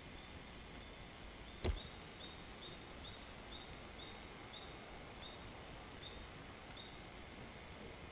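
Crickets trilling steadily and high-pitched in the grass, with a lower chirp repeating about twice a second. A sharp click about a second and a half in marks a cut in the recording, after which the trill sits higher.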